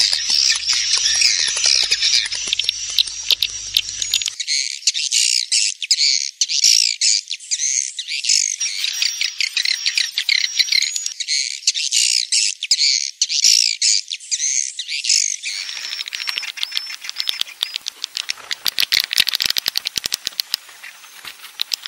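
A swiftlet-house lure track, blended from roosting sounds: many edible-nest swiftlets chirping and twittering in overlapping high calls, with rapid clicking and wing flapping. The clicking is densest near the end.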